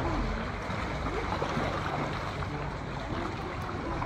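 Steady wash of sea water and wind noise around an inflatable canoe out on open water, with a low rumble underneath.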